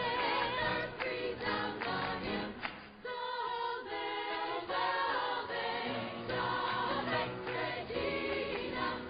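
Sung music: a melodic vocal line with wavering, held notes over a choir-like blend of voices, with a brief drop in loudness about three seconds in.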